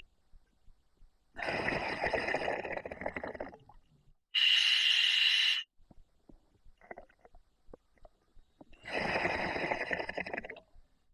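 A scuba diver breathing through a full face mask regulator: two bubbling exhalations of about two seconds each, with a short, sharp hissing inhalation through the demand valve between them.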